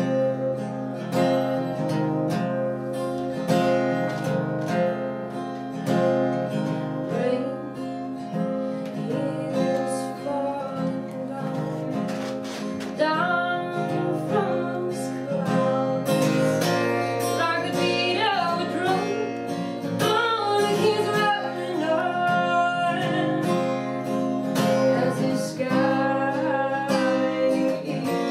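Acoustic guitar strummed steadily, with a woman singing over it, mostly in the second half.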